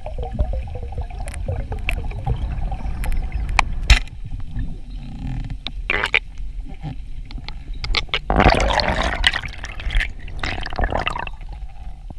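Water sloshing and gurgling over a steady low rumble, with scattered knocks. A louder rush of noise comes about eight and a half seconds in, and a shorter one a little later.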